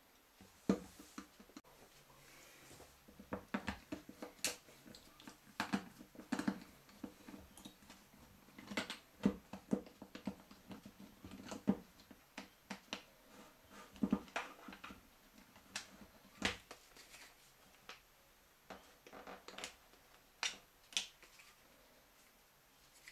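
Irregular clicks, knocks and scraping of hands and a screwdriver working on a plastic baby-stroller wheel and its rubber tyre while the wheel is taken apart.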